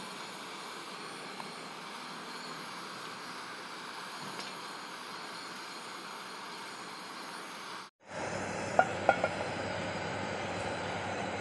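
Steady rushing hiss of a gas burner, louder after a break about two thirds of the way in, followed by three quick clinks of a metal spoon against a metal pot.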